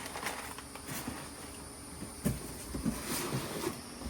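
Handling of intake-kit parts and packaging: light rustling and small clicks, with one sharper knock about two seconds in.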